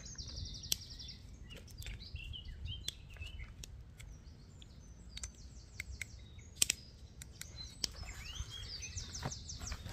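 Songbirds singing, with a rapid high trill near the start and another near the end, while a few sharp clicks come from cooking tongs and utensils being handled.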